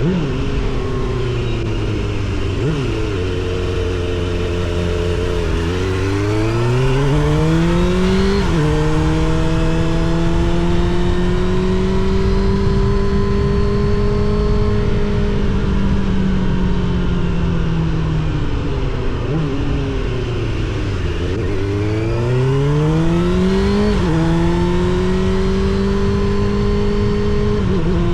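Suzuki GSX-R750 SRAD inline-four through a Yoshimura R77 exhaust, accelerating on the road. The engine note climbs and falls away sharply at an upshift about eight seconds in, holds steady, sinks as the throttle comes off, then climbs again to a second upshift near the end.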